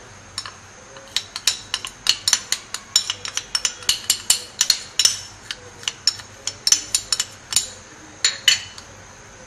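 A metal spoon clinking sharply and irregularly against a plate and the powder container, several clinks a second, as custard powder is tipped into milk and worked in. The clinking stops shortly before the end.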